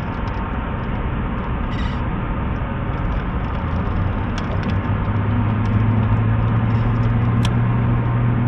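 A boat motor's steady low hum, growing louder about five seconds in, over a constant rushing noise.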